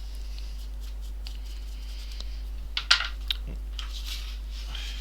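Small hard objects handled on a repair bench: a short cluster of sharp clicks and clacks about three seconds in, one much louder than the others, over a steady low electrical hum.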